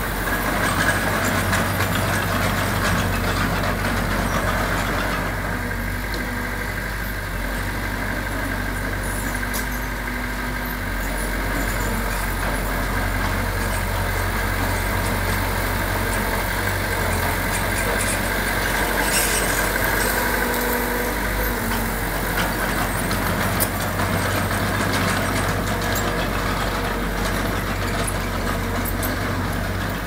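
Diesel engines of heavy earthmoving machines, dump trucks and a bulldozer, running steadily with a constant low hum.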